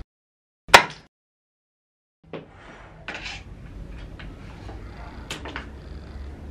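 Katana swung through the air: one loud, sharp swish about a second in that fades quickly, then light knocks and clicks as the sword is handled.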